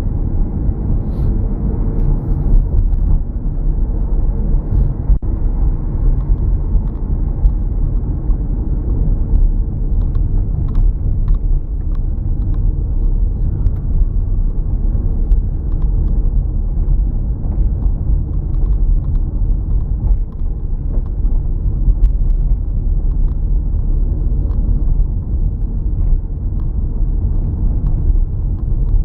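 Steady low rumble of a car driving, road and engine noise with no change in pace.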